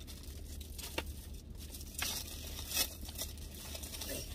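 Crinkling and rustling of food packaging being handled, with a light click about a second in and short rustles about two and nearly three seconds in.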